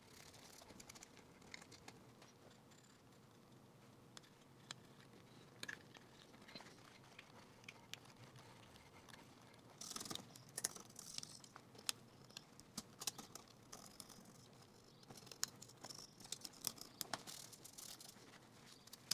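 Faint rubbing and crinkling of a tissue wiped over the plastic case of an NEC NT-625 transistor radio, with light scratches and ticks of a pick scraping grime off the inside of the case; the scratching grows busier about halfway through.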